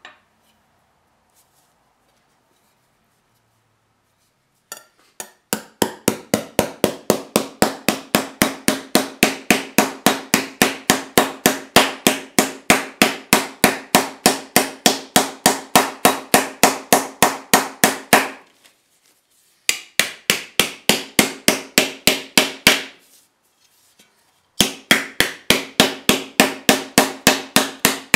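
Small hammer beating a copper disc laid on a cloth pad, raising a warty, bumpy texture in it. Steady blows about three a second, each with a short ring, come in three runs broken by two short pauses, beginning about five seconds in.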